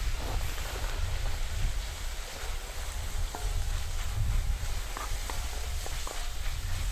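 Onions frying in a cast iron pan over a campfire, with a steady sizzle over a low rumble.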